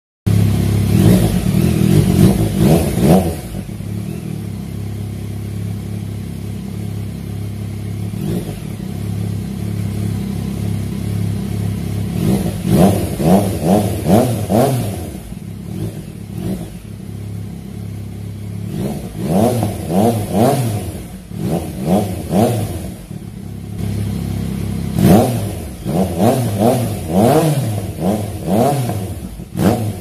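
Yamaha MT-09's inline three-cylinder engine through a Remus aftermarket exhaust, on its stand, idling steadily and revved in quick throttle blips. There is a burst of revs at the start, a long idle, then repeated groups of blips through the second half.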